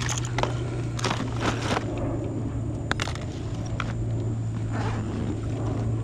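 Scattered clicks, taps and scraping of hands and gear at work as a fishing hook is taken out of a hooked turtle, over a steady low hum.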